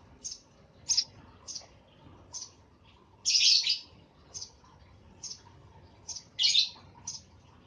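Eurasian tree sparrow chirping: short high chirps about every half second, with two longer, louder bursts of chirping, about three seconds in and again about six seconds in.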